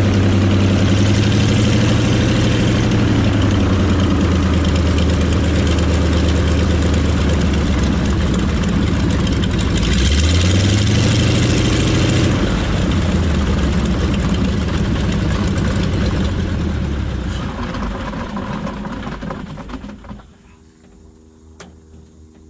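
Ivchenko AI-14RA nine-cylinder radial engine of a PZL-104 Wilga running at idle, rising briefly in speed about ten seconds in, then slowing and stopping about twenty seconds in as it is shut down. A faint steady hum remains after it stops.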